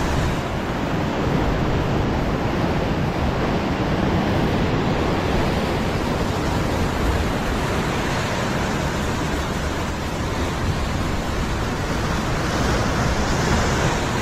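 Sea surf churning and breaking over the rocks at the foot of a cliff, a continuous rush of white water, with wind on the microphone.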